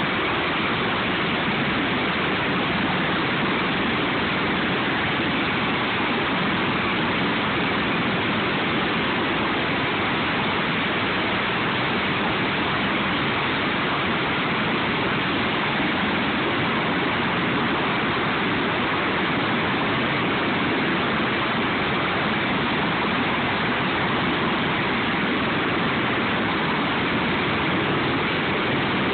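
Steady, even rushing noise of the Sikorsky MH-53E helicopter's turbine engines running on the ground, with no distinct rotor beat.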